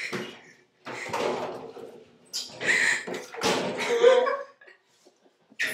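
Knocks, thuds and scuffing of someone climbing up out of a lying position in an empty bathtub, bumping the tub and the glass shower door, in a series of irregular bursts, loudest just past the middle.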